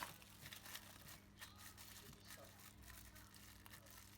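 Faint handling noises: a sharp click at the start, then scattered light clicks and rustles over a steady low electrical hum.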